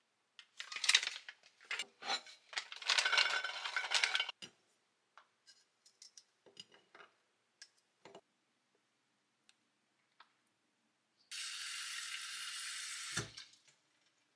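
Vacuum-sealed plastic food bags crinkling as they are handled, then a few light clicks of peeled garlic cloves set into a ceramic dish. Near the end, a kitchen tap runs for about two seconds, and a bowl is knocked down at the sink.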